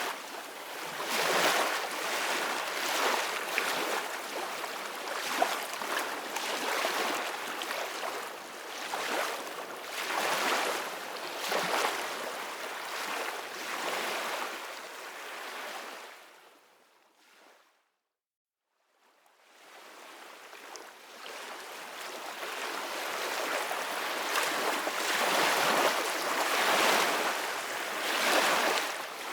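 Ocean surf washing ashore in repeated surges, a wash every second or two. A little past the middle the sound fades out to silence for about a second, then fades back in.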